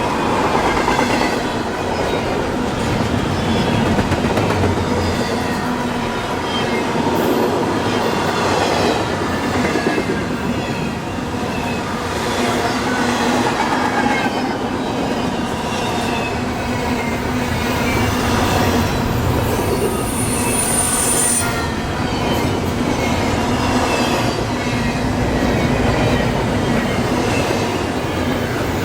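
Cars of an intermodal freight train rolling past, a steady clatter of wheels over the rails with light wheel squeal, and a brief high-pitched squeal about two thirds of the way through.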